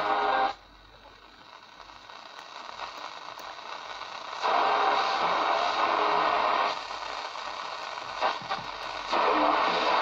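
Portable transistor radio being tuned across the AM band: a music station cuts off about half a second in, giving way to a hiss of static that slowly rises, then louder station sound comes in, drops away and returns near the end, with a few crackles in between.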